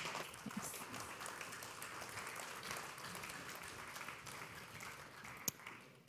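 Audience applauding, fading out near the end, with one sharp click shortly before it stops.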